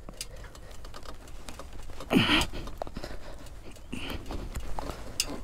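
A person breathing hard, with a short strained grunt about two seconds in, among light clicks and scuffs: a rider's exertion just after falling on a steep dirt trail.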